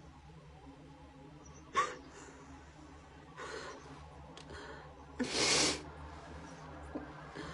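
A young woman with an allergy sneezing: a short, sharp sneeze about two seconds in, a breath, then a longer, louder breathy sneeze past the middle.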